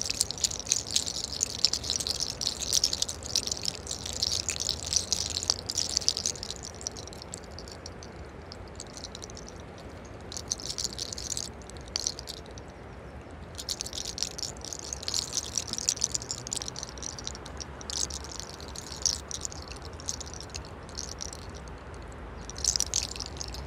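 Locks of hair rolled and rubbed between fingertips close to the microphone during a hair-cracking scalp massage: a crackling rustle that comes in stretches, with short pauses between them.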